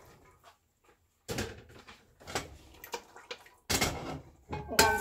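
Four separate knocks and clatters from a plastic colander and a stainless steel pot as the last soaked chickpeas are tipped in and the pot is handled on the stovetop. The loudest comes near the end.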